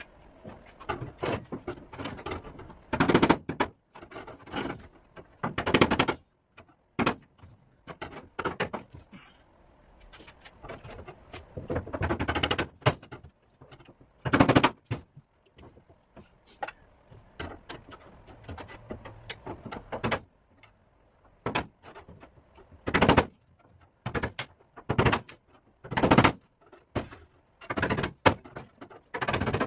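Sheet metal of an old truck body being worked loose: irregular sharp metal knocks and clanks, with a few longer bursts of noise in between.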